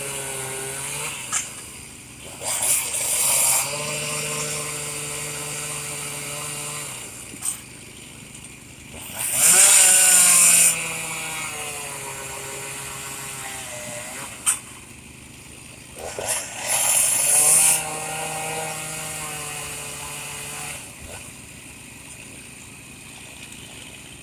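Stihl 362 two-stroke chainsaw revving up in three short bursts, about seven seconds apart, and dropping back to a lower steady run between them: the last few cuts through an ash log.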